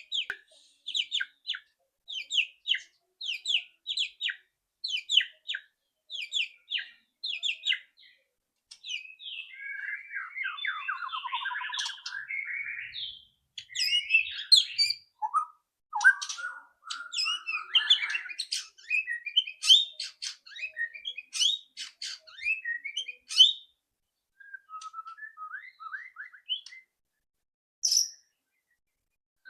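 White-rumped shama (murai batu) giving harsh, loud ketrek rattles, short bursts repeated about every three-quarters of a second, then breaking into runs of varied warbling song notes.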